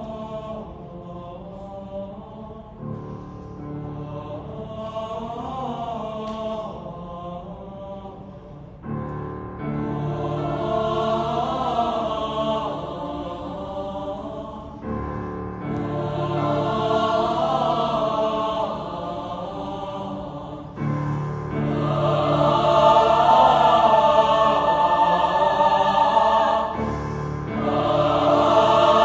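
High school choir singing slow sustained chords in phrases that enter about every six seconds, growing louder with each entry.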